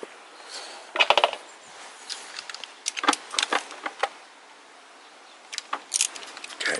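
Irregular metallic clicks and clinks of hand tools, with a quick cluster about a second in, a scattered run of clicks around three to four seconds, and a few more near the end, as the motorcycle's radiator mounting bolts are loosened.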